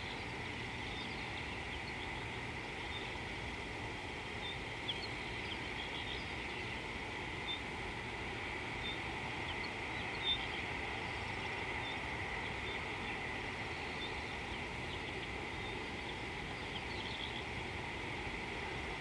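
Bush savanna ambience: a steady low rumble and hiss under a constant high thin hum, with scattered short bird chirps throughout.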